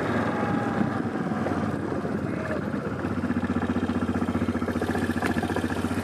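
Quad bike (ATV) engine running steadily while it is ridden, with a rapid, even pulse to its note.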